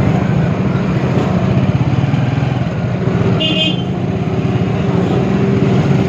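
Motorcycle engine running steadily while riding in traffic, with rushing air noise. A vehicle horn toots briefly a little past the middle.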